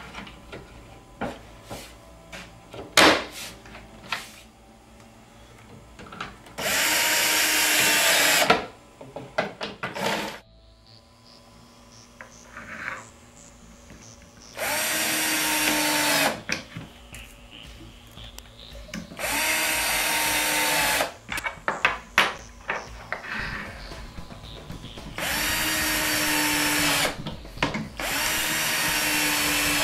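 Cordless drill driving screws through metal L-clips into a wooden cabinet back panel, in five runs of about two seconds each, each starting with a short rise in pitch. Sharp clicks and knocks of parts being handled come between the runs, with a loud knock about three seconds in.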